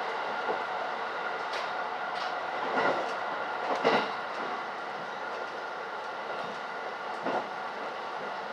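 Running noise of a rapid electric train heard from inside the carriage at speed: a steady rumble with a few sharp clacks as the wheels pass over track joints, the loudest about four seconds in.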